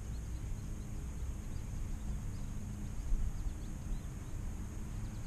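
Steady low rumble and rubbing from a GoPro strapped to a small dog's harness, jostled as the dog moves through grass, with faint high chirps of birds.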